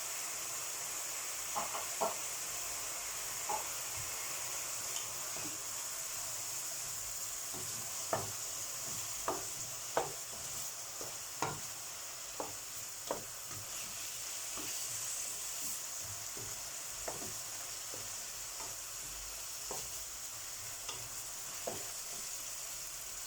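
Vegetables frying and sizzling in a pan, with a steady hiss, while a utensil stirs them and knocks against the pan in irregular sharp clicks.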